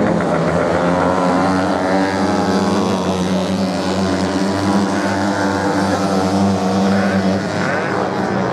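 Off-road motorcycle engines running on a sand race course: a steady engine drone with other bikes revving up and down over it, easing off a little near the end.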